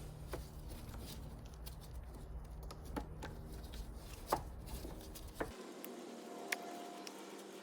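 Faint, scattered clicks and handling noise of small plastic parts: a car battery's vent tube being pushed into the vent hole on the side of the battery. A low background hum cuts off abruptly about two thirds of the way through.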